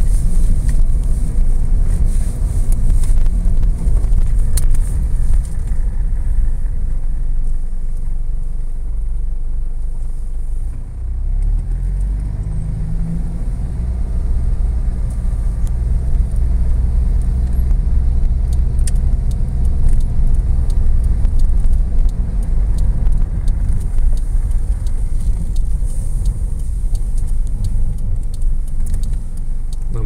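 Car driving on a snow-packed road, heard from inside the cabin: a steady low rumble of engine and tyres. About a third of the way in it dips briefly, then the engine note climbs as the car speeds up again.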